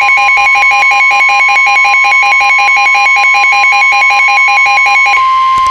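Emergency Alert System attention signal announcing a new weather alert: a loud, steady alarm tone with a second, rapidly wavering tone over it. The wavering tone stops about five seconds in, and the steady tone cuts off half a second later.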